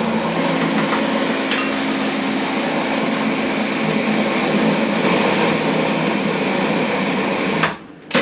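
Food processor motor running steadily with a low hum, its blade churning frozen bananas, strawberries and raspberries into a soft-serve consistency; it cuts off near the end.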